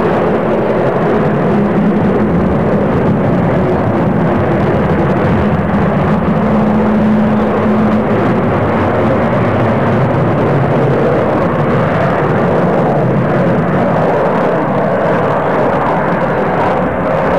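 Avro Vulcan bomber flying a display pass overhead, its four Rolls-Royce Olympus jet engines giving a loud, steady jet roar. A low steady drone runs through the roar for the first half.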